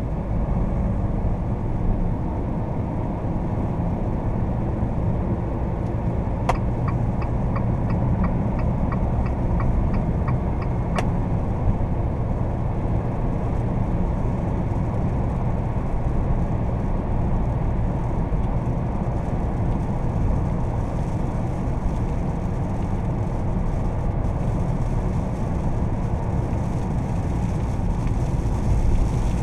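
Cabin sound of a Fiat Toro 2.0 turbodiesel pickup driving at about 57 to 77 km/h: a steady low engine drone with tyre and road noise. From about six to eleven seconds in, a turn-signal indicator ticks about twice a second.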